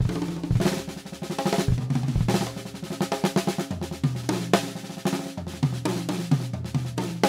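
Acoustic drum kit played solo: quick strokes on snare and toms with bass drum, the toms ringing on at a low pitch between hits.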